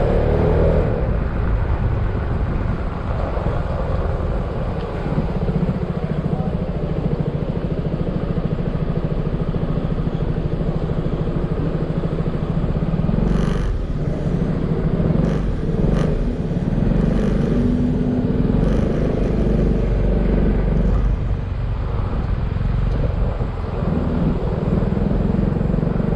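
Yamaha XMAX maxi-scooter's single-cylinder engine running steadily while riding, with road and wind noise throughout. A few sharp clicks come about halfway through.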